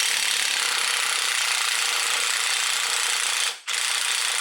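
Impact wrench hammering on a tight CV axle nut through a 34mm socket. It hammers steadily for about three and a half seconds, stops briefly, then starts hammering again.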